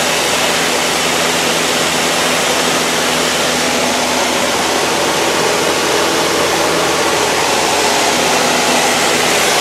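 Steady, really loud cabin noise of a 1960s four-seat high-wing light airplane in cruise: the engine and propeller drone under a constant rush of air, unchanging throughout.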